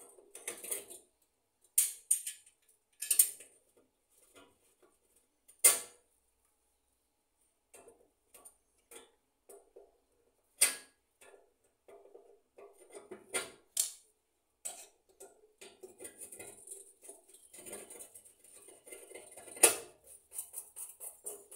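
Pliers and a screwdriver working on a stove's burner fittings: scattered sharp metal clicks and clinks, with denser scraping and rattling in the second half.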